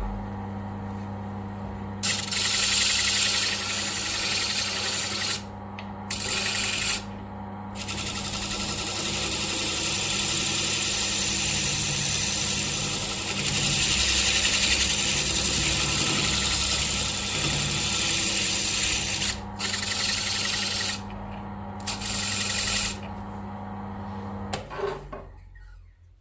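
Electric bench grinder switched on and running with a steady mains hum, while a workpiece is pressed against the spinning wheel or disc in several bouts of grinding, one long bout in the middle. It is switched off near the end and winds down.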